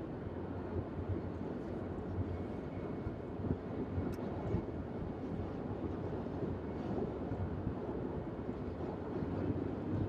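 Steady low road rumble inside a moving car's cabin.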